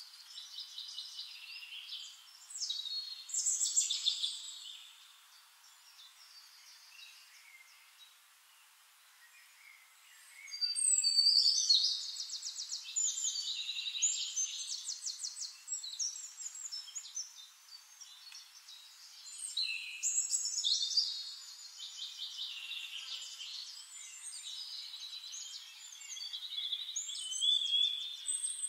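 Several forest songbirds singing high, fast trills and warbles that overlap. The song comes in bursts, with a quieter gap of about five seconds a few seconds in, then dense song through most of the rest.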